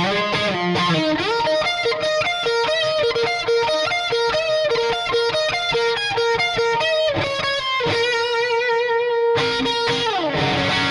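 Lavish CMRL electric guitar, an older China-made model, played with a distorted tone: a fast single-note lead line, then a long held note about eight seconds in that breaks off briefly before a last phrase sliding down in pitch.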